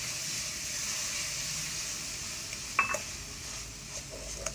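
Milk sizzling as it hits hot ghee-roasted gram flour in a pan, a steady hiss that slowly weakens as the mixture froths. A short clink rings out about three seconds in, with a few small scrapes near the end.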